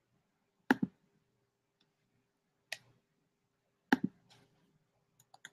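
Computer mouse clicking: a close double click a little under a second in, a single click near three seconds, another close double click about four seconds in, then a few lighter clicks near the end.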